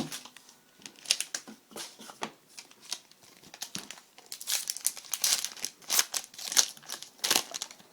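Trading-card pack wrapper crinkling as it is handled and opened, along with cards being shuffled, in irregular crackles that grow busier in the second half.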